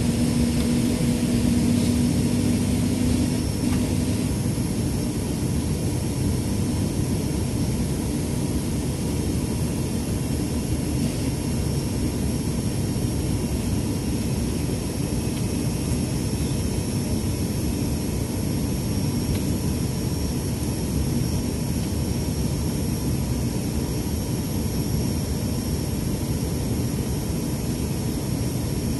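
Cabin noise inside an ATR 72-600 turboprop on landing approach, heard from the front row beside the propeller. The Pratt & Whitney PW127M engine and six-blade propeller drone steadily, with a low hum near the start that fades out after about three seconds.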